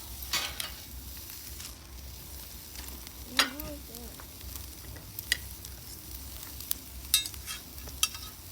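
Meat sizzling on a barbecue grill, with a few sharp clicks and scrapes of cooking utensils.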